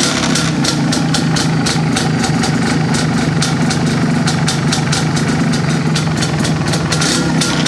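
MZ ETZ single-cylinder two-stroke motorcycle engine idling steadily through a stock-pattern exhaust.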